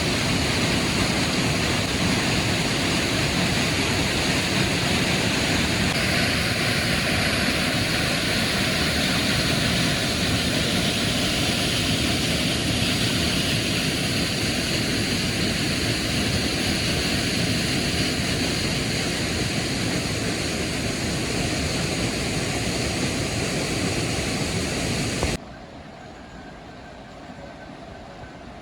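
Steady rushing of a large waterfall, an even noise with no rhythm. It cuts off suddenly near the end, leaving a much quieter background.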